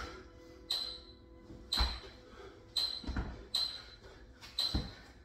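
Hard, rapid breaths of a man doing burpees, about one a second, with dull thuds as his hands and feet land on a rubber floor mat.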